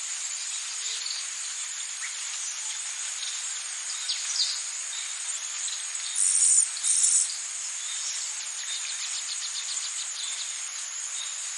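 Rainforest insect chorus: a steady, dense, high-pitched shrilling. About halfway through come two loud, short buzzes back to back, and later a quick run of ticking calls.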